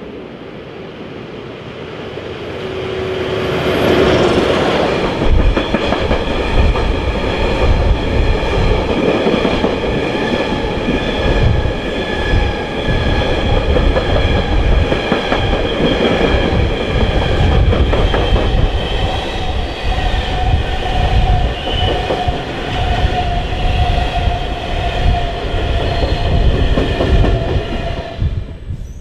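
Freight train of yellow hopper wagons hauled by a red SBB electric locomotive passing close by. The locomotive goes past about four seconds in, then the wagons roll by with wheels clattering over the rails and a steady high squeal. The sound cuts off suddenly at the end.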